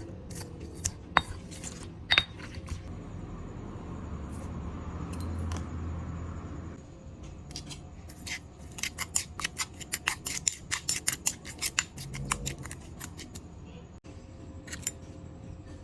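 Light clicks and clinks of kitchen utensils against dishes, with a stretch of steady rushing noise in the middle and then a quick run of small clicks, several a second, for a few seconds.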